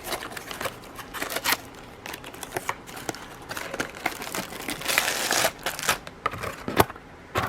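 Packaging rustling and crinkling with scattered clicks and taps as a paint-by-numbers kit is handled and unpacked from its box, with a longer stretch of rustling about five seconds in.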